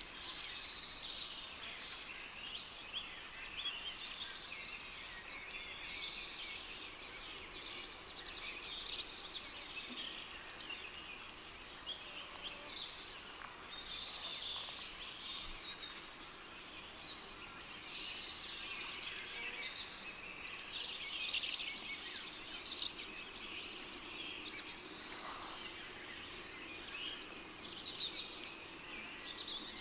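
Rainforest ambience: a cricket chirping in a steady, even pulse of about three to four high chirps a second, pausing briefly about nine seconds in, over scattered bird calls.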